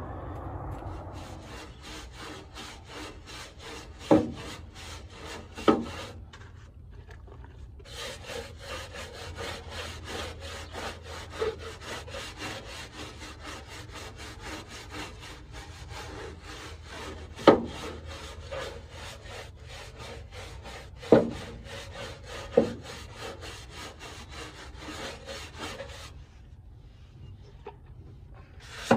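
Stiff-bristle scrub brush scrubbing the bare sheet metal of a Toyota AE86 Corolla's wheel well and frame rail in rapid back-and-forth strokes, with a few sharp knocks of the brush against the metal. The scrubbing breaks off for a couple of seconds about six seconds in and stops again near the end.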